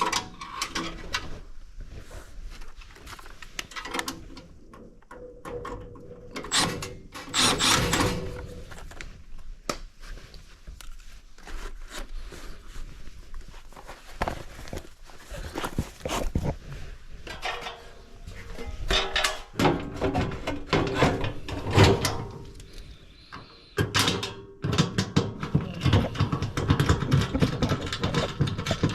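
Irregular knocks, clicks and scraping of metal furnace parts and hand tools being handled during furnace maintenance, busier near the end.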